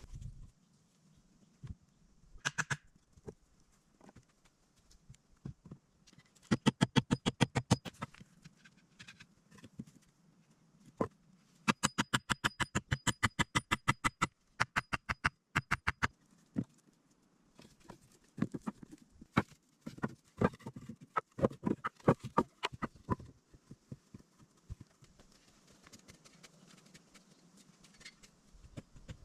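Rapid runs of sharp knocks, several a second: a short burst about six seconds in, a longer run of about four seconds near twelve seconds in, then slower, irregular knocks around twenty seconds.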